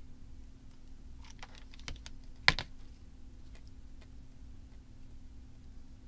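Scattered light clicks and taps of hands handling craft pieces on a tabletop as a hot-glued fabric flower centre is pressed into place, with one sharper knock about two and a half seconds in.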